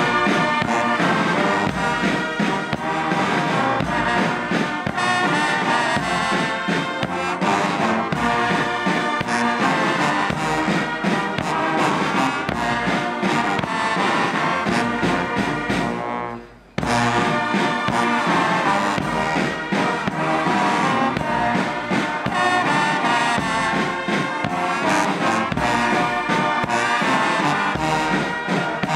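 A brass band plays a march. The music breaks off for under a second just past halfway, then picks up again.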